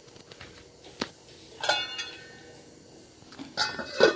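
Stainless steel lid clanking on a steel pan with a short metallic ring, once about one and a half seconds in and again near the end, the second time loudest. There is a lighter click about a second in.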